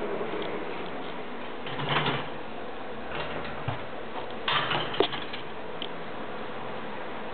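A few brief rustling, scraping sounds, about two seconds in and again around four and a half to five seconds, with a sharp click near five seconds, over a steady hiss.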